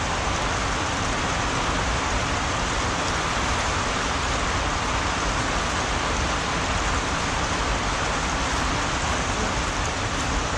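Heavy rain falling steadily on the greenhouse roof, a dense even hiss with no single drops standing out.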